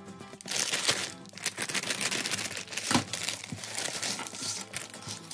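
Crinkling of a clear plastic polybag full of Lego bricks as it is handled and pressed flat, with a sharp click about three seconds in.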